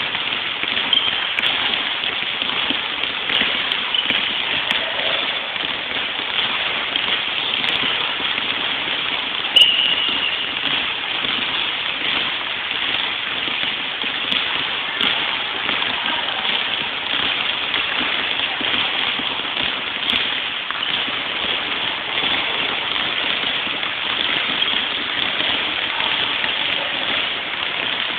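Many basketballs being dribbled at once on a hard gym floor, a dense, continuous patter of overlapping bounces. There is a brief high squeak near the middle.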